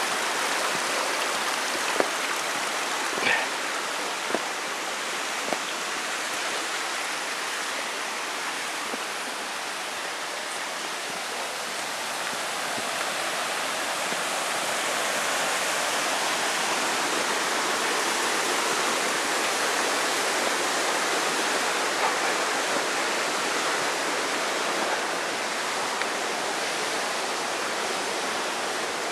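Rushing water from a stream, a steady even rush, with a few light knocks in the first several seconds.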